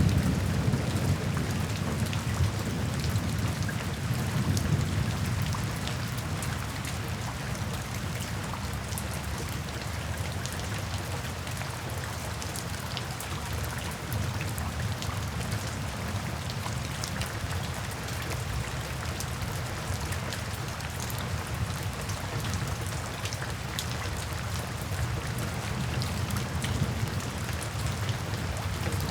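Steady rain falling on a window, with many small drop ticks against the glass. A low thunder rumble is loudest at the start and dies away over the first few seconds.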